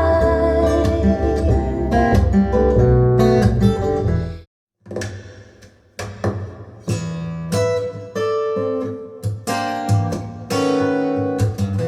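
A song played back through Audio Note AN-J-LX loudspeakers from valve amplifiers: acoustic guitar and bass, without vocals, stop abruptly about four and a half seconds in. After a brief silence the same song starts again with strummed acoustic guitar chords.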